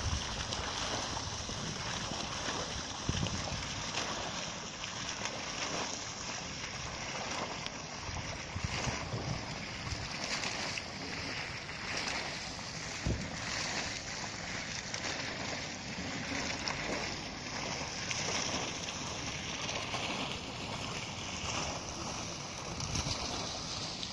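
Fountain jet splashing steadily into its shallow basin, a constant hiss of falling water, with a few low wind thumps on the microphone.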